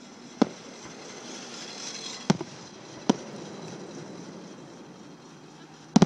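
Aerial firework shells bursting: sharp bangs about half a second in, about two seconds in and about three seconds in, then a double bang near the end, over a steady background hiss.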